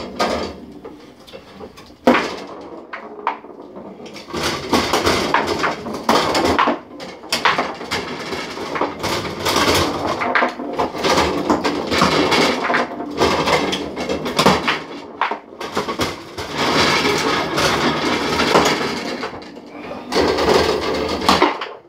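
Fast foosball play on a wooden table: plastic players on spun rods strike the ball, with rapid clacking and knocking of ball, figures and rods. It is sparser for a couple of seconds early on, then a dense, near-continuous clatter.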